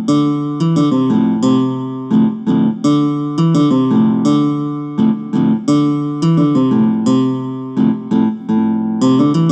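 Ringtone tune: a bright melody of quickly repeated plucked-string notes, each sharply struck and dying away fast.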